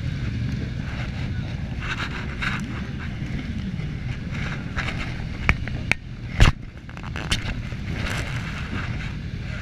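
Motorcycle engine idling with a steady low rumble, with a few sharp knocks in the middle, the loudest about six and a half seconds in.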